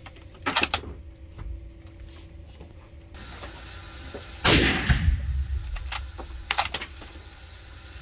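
A single suppressed rifle shot from a Brenner BR20 bolt-action rifle with a screw-on silencer, about four and a half seconds in, its report echoing briefly in the indoor range. Short sharp clicks come shortly after the start and again about two seconds after the shot.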